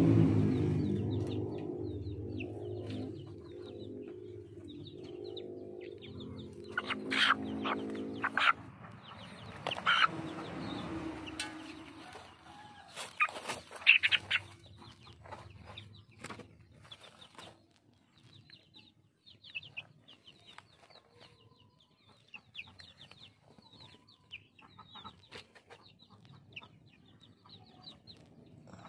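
Chickens clucking, with rustling and a few sharp knocks from a restless chicken being held and tied. A low drone fades away over the first dozen seconds.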